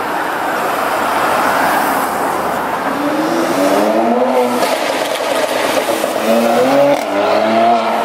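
Renntech-tuned 2018 Mercedes-AMG C43's twin-turbo V6 accelerating hard on a fly-by. The exhaust note climbs in pitch in rising pulls, about three seconds in and again near the end, with a short break at each gear change.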